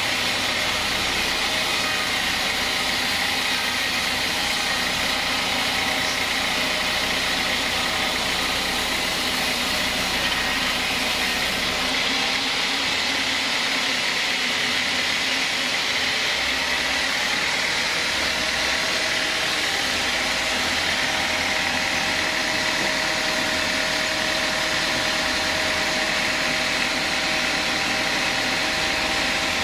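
Vertical band sawmill running, its blade ripping lengthwise through a large timber log being fed past it: a steady, even machine noise with a faint high whine.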